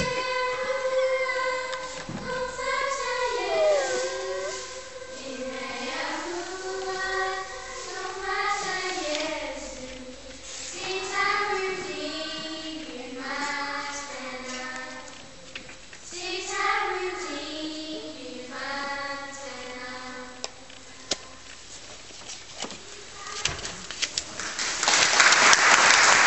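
A voice singing slow phrases with long held notes that waver and wind in pitch, the singing dying away about twenty seconds in. Near the end the audience breaks into applause.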